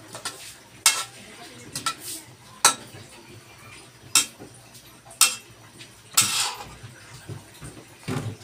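Metal spatula clinking and scraping against a metal wok while stir-frying kangkong (water spinach). Sharp clinks come about once a second, with a longer scrape about six seconds in.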